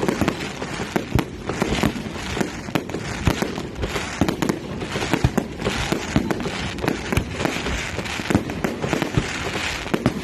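Fireworks display going off continuously: many sharp bangs in quick succession, several a second, over a steady crackling hiss.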